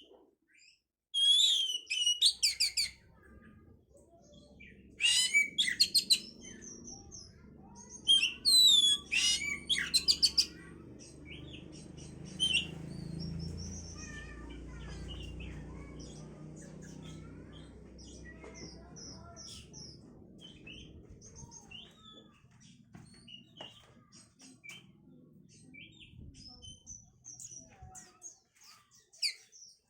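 Oriental magpie-robin (kacer) singing: loud bursts of fast, rising and falling whistled phrases in the first ten seconds, then quieter scattered chirps and notes. Under it a low rumble swells in the middle and dies away near the end.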